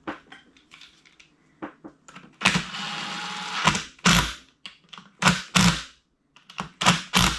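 Clicks and knocks of metal engine parts and tools being handled, with a rushing noise lasting about a second starting about two and a half seconds in and several loud knocks after it.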